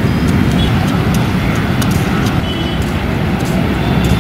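Steady, loud, low rumbling outdoor noise with no single event standing out, and a few faint, short high tones about halfway through.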